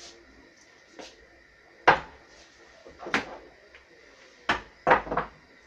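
Kitchenware being handled: a few sharp knocks and clatters, the loudest about two seconds in and a quick double knock near the end.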